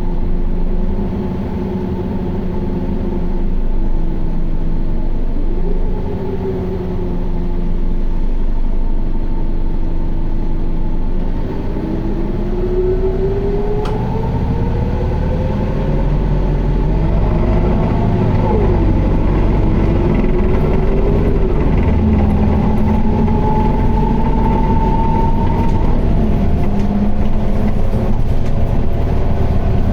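Interior running sound of an Isuzu Erga QDG-LV290N1 city bus's four-cylinder turbodiesel and driveline, held in fourth gear in power mode. A drivetrain whine climbs as the bus speeds up, drops sharply about 18 seconds in, then rises and falls again. This bus is known for an abnormal noise and heavy vibration.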